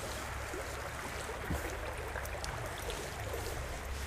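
Small stream's running water flowing steadily.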